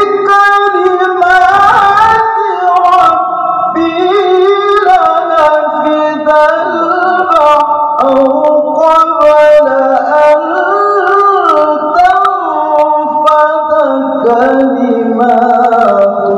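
A man reciting the Quran in melodic tilawah style into a microphone, holding long melismatic notes that glide up and down in pitch.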